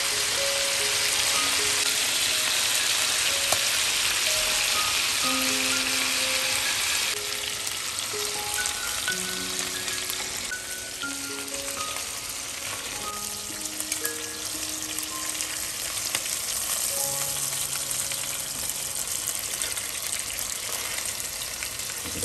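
Chicken drumsticks and thighs sizzling as they fry in fat in a pan, a dense hiss that is loudest for the first seven seconds or so and then eases. Soft background music with a slow melody plays over it.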